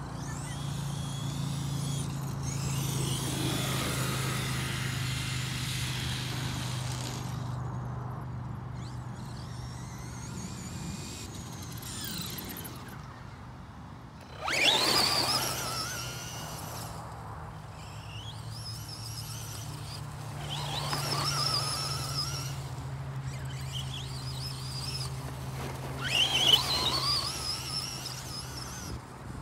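Traxxas E-Revo 2.0 RC monster truck's electric motor whining as it accelerates and slows across grass, in several bursts that rise and fall in pitch. A sharp surge comes about halfway through, and the loudest burst comes near the end.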